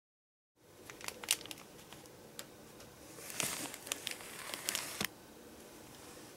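A clear plastic bag of blue coil springs crinkling as it is handled, a scatter of small crackles and clicks that is busiest in the middle.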